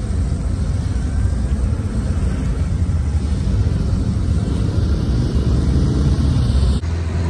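Wind buffeting a phone's microphone while riding a bicycle: a loud, rough, steady low rumble, which changes abruptly near the end.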